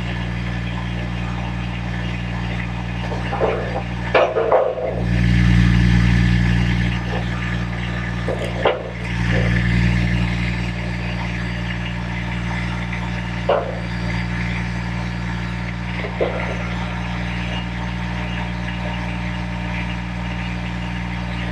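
A steady low machine hum that swells louder twice, with a few sharp knocks in between.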